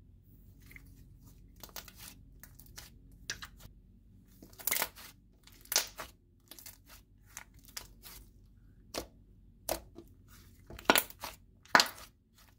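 Thick slime being pressed, stretched and pulled apart by hand on a tabletop, giving irregular sticky crackles and snaps as it tears. The loudest snaps come about five seconds in and near the end.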